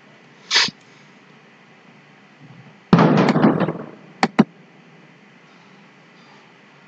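Two quick computer mouse clicks just after four seconds in, choosing Compile & Run from a menu. About a second earlier comes a louder, rough burst of noise lasting under a second, and there is a short hiss near the start.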